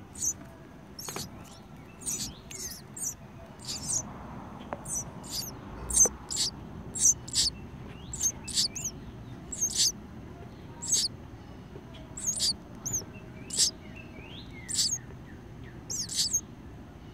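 House sparrow nestlings giving short, high begging chirps, repeated unevenly about one or two a second, as they call for food.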